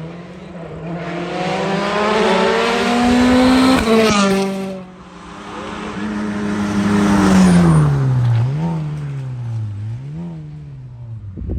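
Rally car engine under hard acceleration: the revs climb for about four seconds, drop suddenly, climb again to the loudest point around seven seconds in, then fall away. Near the end there are shorter rises and falls in engine pitch.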